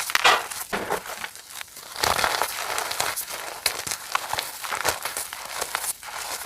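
Reformed chalk being crushed and crumbled: a dense, crunchy crackling of many small sharp cracks, louder and denser from about two seconds in.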